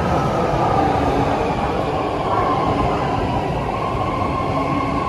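BART Fleet of the Future electric train pulling into the station: a steady rumble of wheels on rail with a faint, even whine above it.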